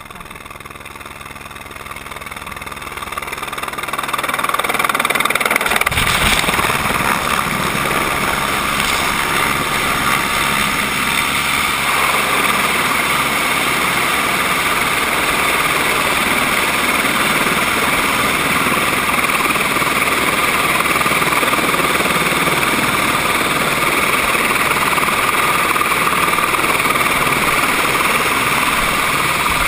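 Turbine helicopter landing close overhead, its rotor and engine noise growing loud over the first four or five seconds. It then keeps running steadily and loudly, with a steady whine, while it sits on its skids.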